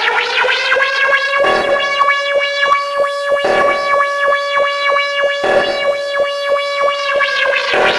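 Synthesized siren-style alert tone with a musical beat, from an emergency alert siren recording. One held tone glides up at the start and then stays steady over a fast, regular clicking beat, dropping away right at the end.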